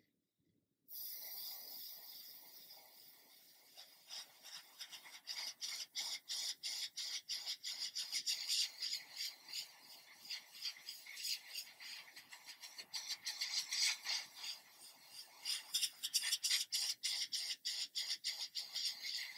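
Airbrush with a 0.2 mm needle spraying at about one bar. A steady hiss of air and paint starts about a second in, then stutters on and off rapidly as the trigger is worked.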